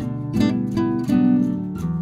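Background music played on acoustic guitar, with plucked notes and strummed chords in an even rhythm.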